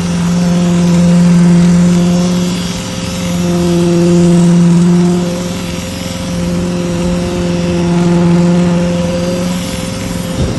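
Concrete pump running as concrete is pumped through the hose into ICF wall formwork: a steady hum that swells and eases every three to four seconds with the pump's strokes.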